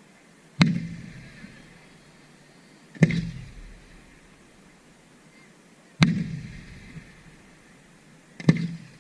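Aerial firework shells bursting: four loud bangs about every two and a half to three seconds, each followed by a rumble that fades over about a second.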